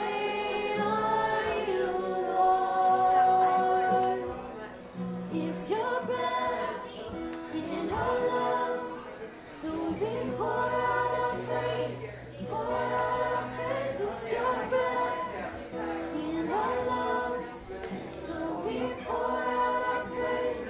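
Women's voices singing a slow song together in phrases of long held notes, accompanied by an acoustic guitar.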